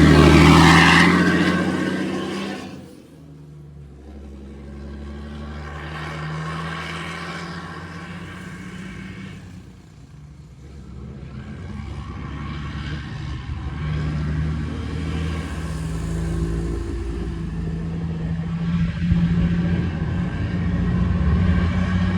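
Royal Enfield Meteor 350's single-cylinder engine running through an aftermarket exhaust fitted with a diffuser. A loud burst of throttle at the start dies away within about three seconds. The engine then runs with a deep, steady note that swells and dips, getting louder again near the end.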